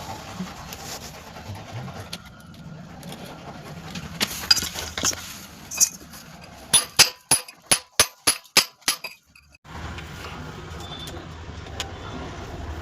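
A few scattered knocks, then a quick run of about nine sharp clinks, roughly four a second, like hard objects being tapped together during fitting work.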